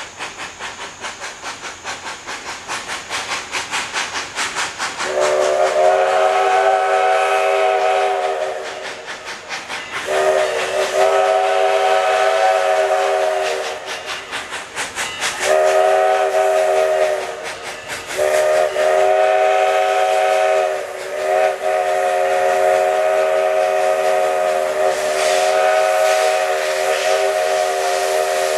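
Southern Railway 2-8-0 steam locomotive No. 154 working toward a grade crossing, its exhaust chuffing about three times a second. Its steam whistle then blows long, long, short, long, the grade-crossing signal, with the last blast held out to the end.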